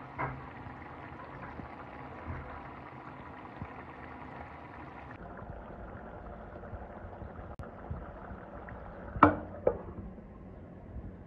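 Fish curry simmering and bubbling in a pan. There is a short knock at the start, and two sharp knocks about nine seconds in.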